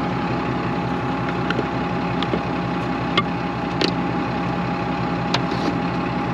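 Tractor engine idling steadily with a constant hum and whine. A few short, sharp clicks or knocks sound over it.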